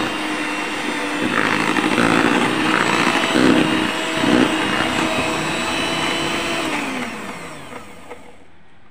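Electric hand mixer running steadily at low speed, its beaters churning a thick butter and cheese mixture in a plastic bowl. Near the end it is switched off and the motor's whine falls in pitch as it spins down.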